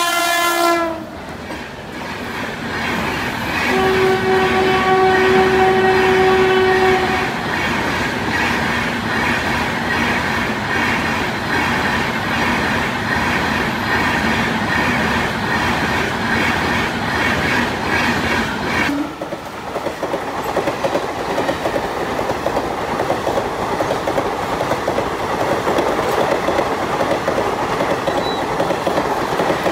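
Indian Railways passenger trains passing at speed: the rushing rattle of coaches with wheels clicking over rail joints. The locomotive horn sounds one long blast about four seconds in, lasting about three seconds. About two-thirds of the way through, the sound changes abruptly to another train's coaches rolling past.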